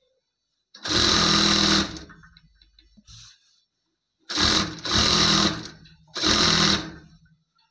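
Jack single-needle industrial lockstitch sewing machine stitching a seam in short runs: one run of about a second near the start, then three shorter runs in quick succession from a little past the middle, each stopping abruptly.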